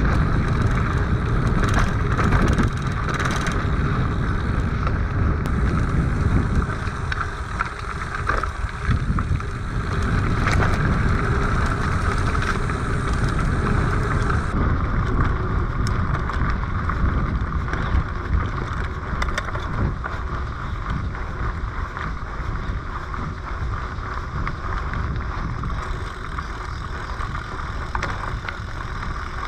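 Mountain bike riding over a dirt forest trail: steady tyre rumble with scattered knocks and rattles from the bike over bumps, and wind buffeting the microphone.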